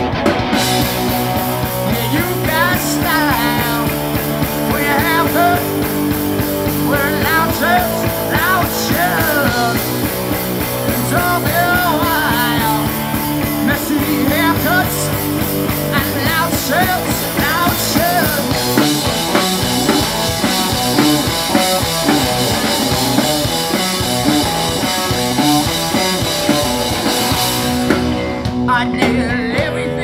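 Live rock band playing loudly: electric guitars with bending lead lines over bass guitar and drum kit. About two-thirds of the way in the cymbals come in heavier, dropping back shortly before the end.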